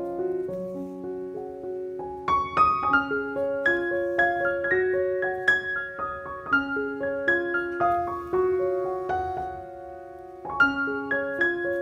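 Background piano music: a melody of single notes over chords, dipping quieter for a moment before a new phrase starts near the end.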